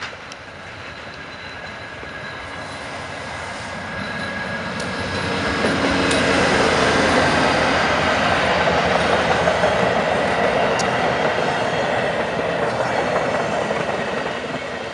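VIA Rail GE Genesis P42DC diesel locomotive hauling a passenger train past. The roar of engine and wheels builds as it approaches and is loudest about six seconds in as the locomotive goes by. It then eases as the passenger cars roll past, with a few sharp wheel clicks and a faint steady high squeal.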